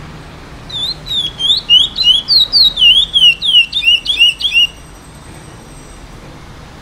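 Chestnut-bellied seed finch (curió), an eight-month-old still in brown plumage, singing a run of about fourteen quick whistled notes that slide up and down, lasting about four seconds, then stopping: a young bird beginning its praia grande song.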